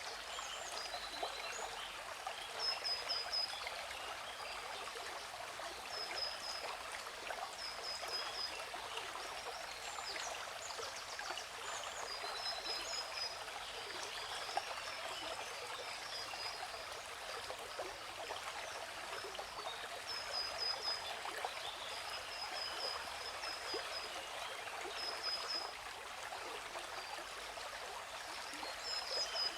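Steady rush of falling water from a waterfall, with birds chirping over it in short high runs of notes every few seconds.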